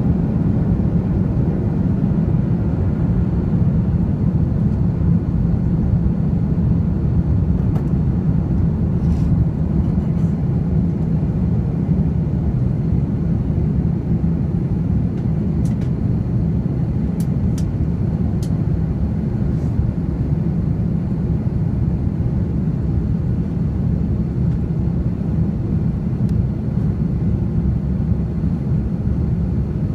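Steady cabin noise of a jet airliner on its landing approach, heard from a window seat beside the engine: a loud, even low rumble with a faint high whine above it. A few faint ticks come near the middle.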